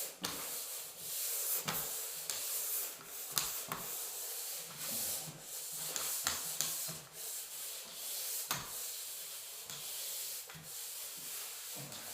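A round 220-grit sanding pad on a Full Circle 360 hand sander scraping across a dried drywall-compound patch, making a steady sanding hiss of repeated long strokes.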